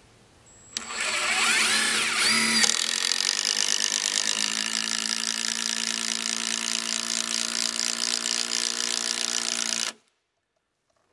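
Milwaukee M18 cordless impact driver driving a long structural screw through a wooden railing post into the deck frame. It starts about a second in with a rising, wavering whine as the screw bites, then runs steadily under load for about seven seconds and stops suddenly near the end as the head seats.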